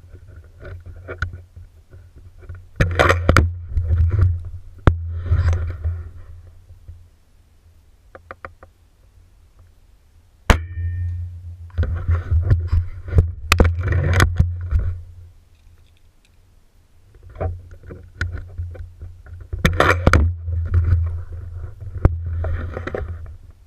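Gamo Whisper break-barrel spring-piston air rifle being handled, cocked and fired, heard through a camera mounted on its scope: stretches of scraping, rattling handling noise over a low rumble, a few small clicks, and a sharp crack about ten seconds in followed by a brief metallic ring.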